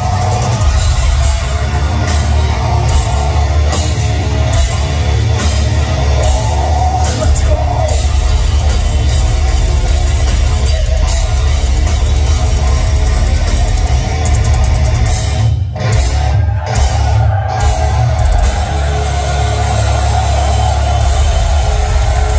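A heavy metal band playing live and loud, with electric guitars and a drum kit. About two-thirds of the way through, the music breaks off briefly a few times.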